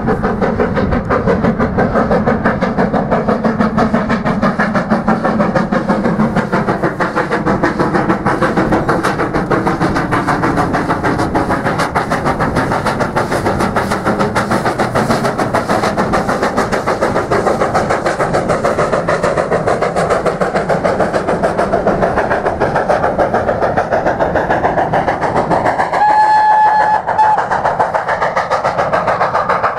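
Southern Railway U class 2-6-0 steam locomotive 31806 working uphill with a train: a fast, steady, continuous beat of exhaust mixed with the run of the coaches. About four seconds from the end comes one short whistle blast of just over a second.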